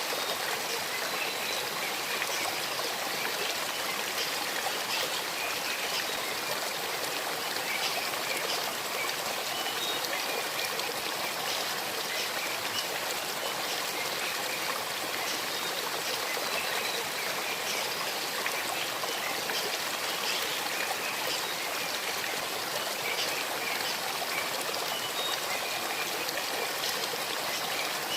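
Shallow stream babbling and trickling over stones, a steady, even wash of running water.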